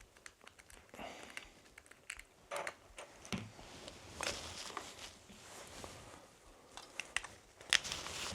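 Faint, scattered clicks, taps and short scrapes of a small plastic bird-call reader pen being handled: its battery cover opened with a tiny screwdriver and batteries fitted.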